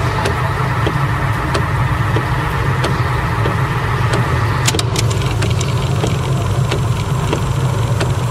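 Idling engine: a steady low rumble with scattered light clicks. A higher hiss drops out a little past halfway.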